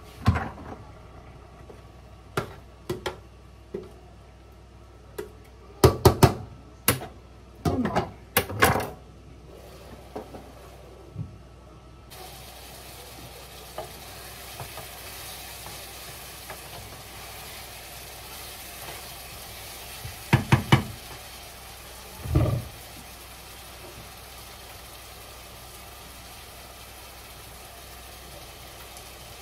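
Scattered clinks and knocks of utensils and pan, then a steady sizzle of onions and mushrooms frying in a pan that starts abruptly once the pan is uncovered. A wooden spoon stirs and knocks against the pan a few times during the sizzle.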